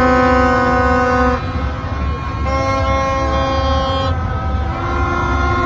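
Long, loud horn blasts, three in a row, each held for over a second, with a steady low rumble of traffic beneath.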